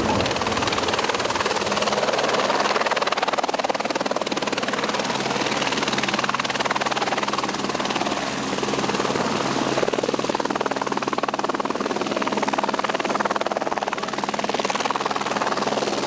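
Helicopter coming in to land close to the ground: a steady, dense rush of rotor and engine noise as its downwash blows up dust.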